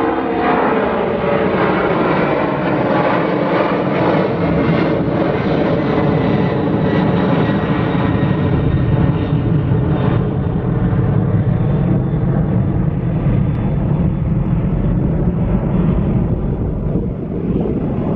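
Twin-engine jet airliner climbing out overhead under takeoff power. Its engine tones slide down in pitch over the first couple of seconds as it passes, then settle into a steady, loud low rumble as it climbs away.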